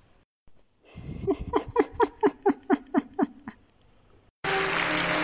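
A rapid run of short vocal sounds, about five a second, each dropping a little in pitch. About four seconds in it cuts suddenly to music with applause.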